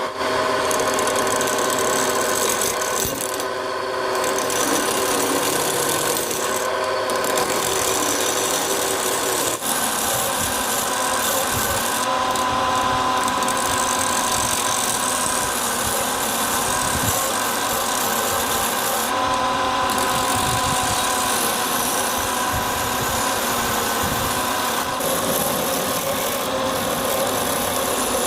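Wood lathe running steadily, with a turning tool scraping against the spinning wood.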